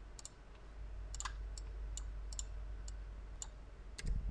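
Faint, scattered sharp clicks of a computer mouse and keyboard, about nine in all at an uneven pace, over a steady low hum; a short low thump about four seconds in.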